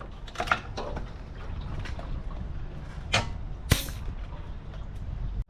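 A few sharp clicks and knocks over a steady low rumble.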